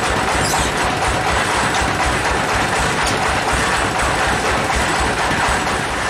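Log band sawmill running steadily: a continuous loud mechanical noise with an uneven low throb underneath.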